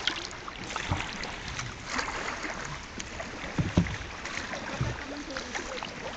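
Kayak paddle strokes dipping and splashing in sea water, with a few low knocks about a second in and again around the middle, over a steady hiss.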